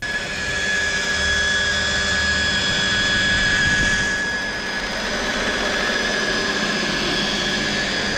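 Electric machine polisher (buffer) running steadily with a high whine, compounding motorcycle paint to rub out scratches.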